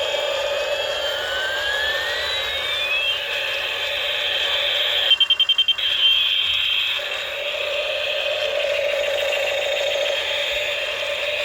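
Electronic alarm-type sound effect: a warbling tone under slow up-and-down pitch sweeps, broken about five seconds in by a quick run of about eight beeps.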